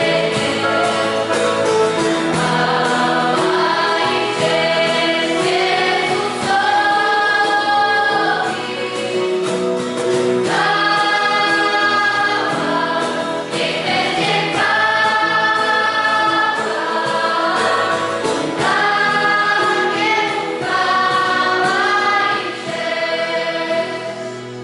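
Church worship choir singing a hymn in long held phrases, with the singing ending just before the close.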